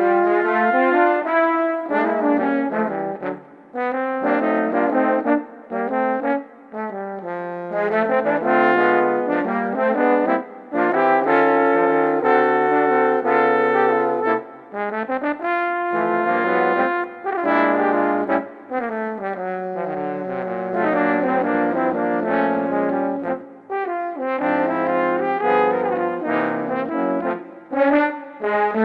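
Instrumental music in which several wind instruments play held, overlapping notes over a lower bass part. It is a sample track edited and mastered through a digital–analog–digital chain.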